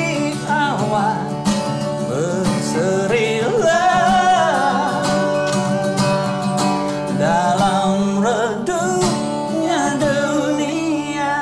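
Acoustic guitar played with a man singing along; the music fades out at the very end.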